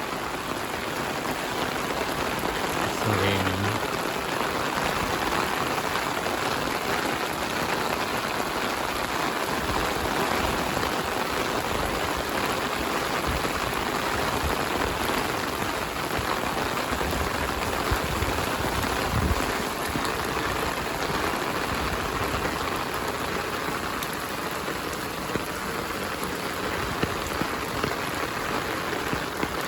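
Heavy rain falling steadily, a dense even hiss of drops hitting surfaces. About three seconds in there is a brief pitched hum over it.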